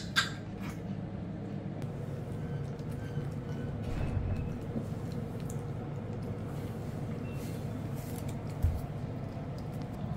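Quiet room tone: a steady low hum, with a sharp click at the start, faint scattered clicks, and one soft low thump near the end.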